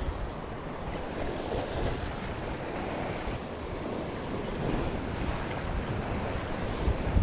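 Wind buffeting the microphone over the wash of sea waves, with a steady high hiss.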